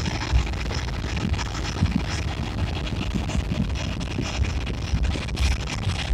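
Wind buffeting the microphone on a moving motorcycle, with the motorcycle's engine and tyre noise running steadily underneath and gusts thumping now and then.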